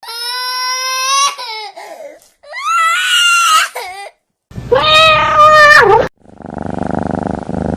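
Three drawn-out wailing cries, one after another, each bending in pitch. About six seconds in they give way to a steady, rapidly pulsing low rumble.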